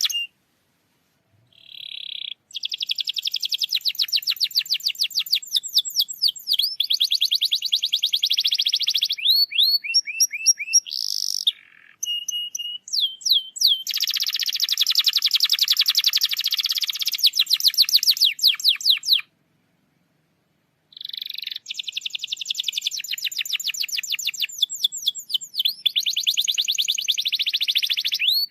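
Domestic canary singing long, fast trills (rolls) of rapidly repeated notes, with a few short whistled notes between them. The song breaks off twice into silence, once near the start and once for about a second and a half past the middle.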